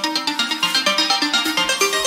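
Electronic music played on hardware synthesizers: a fast sequence of short pitched notes, several a second, with no beat of drums standing out.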